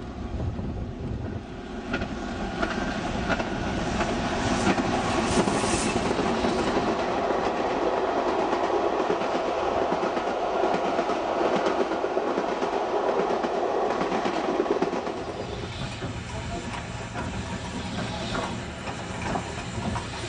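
A steam-hauled passenger train, double-headed by a BR Standard 4 2-6-0 and a Black 5 4-6-0, running past at speed. The coaches' wheels clatter over the rail joints. The sound builds as the train nears, stays loud while the coaches pass, and eases after about fifteen seconds.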